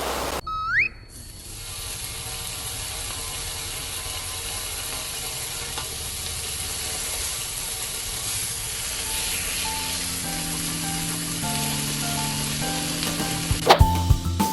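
Edited-in background music: a short rising whistle effect near the start, then a soft music bed of sustained tones, with a stepping bass melody coming in about ten seconds in and a whoosh just before the end.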